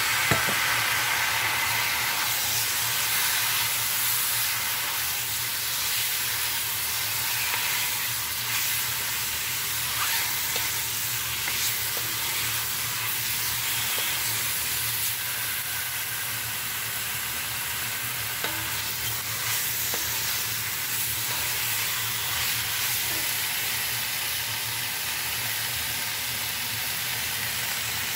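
Wood ear mushrooms, bamboo shoot and shiitake frying in oil in a hot pan and being stirred with a wooden spatula: a steady sizzle with scattered scrapes and taps of the spatula. The sizzle jumps up at the start as the wet mushrooms hit the pan.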